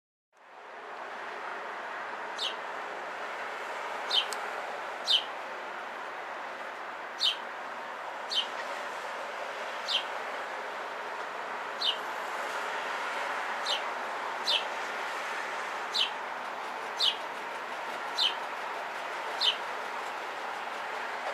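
A bird repeating a short, high, down-slurred call about fifteen times, roughly once every second or two, over a steady background hiss.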